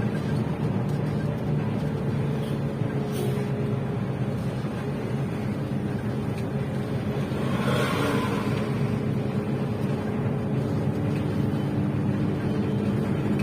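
Steady low engine drone of a large vehicle, with a faint brief sound about eight seconds in.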